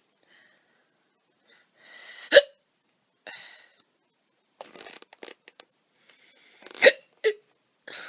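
A young woman hiccuping loudly: two sharp hiccups about four and a half seconds apart, the second followed quickly by a smaller one, with short breaths in between.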